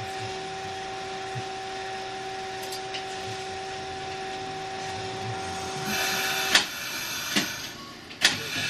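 Fukui Railway 770-type tram heard from inside the cab: a steady two-note electrical hum that stops about six seconds in, after which running noise rises and the wheels clack sharply over rail joints four times.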